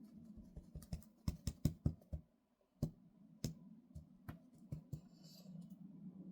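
Hard plastic clicks and knocks from an old Dyson vacuum's dust container being handled: a quick run of clicks a little after a second in, then a few single knocks spread out.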